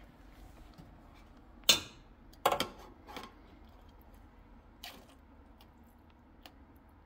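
Sharp metallic clanks and knocks of a metal roasting pan and oven rack being handled at an open oven while a bulb baster is dipped into the turkey drippings. A loud clank about two seconds in, a quick cluster of clatters just after, then a few softer knocks.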